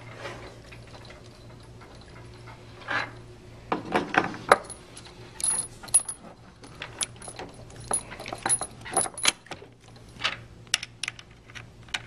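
Metal bolts and nuts clinking and tapping against the plastic pump housing as they are put in and hand-threaded a couple of turns. The sound is a string of short, irregular clicks and light metallic ticks, starting about three seconds in.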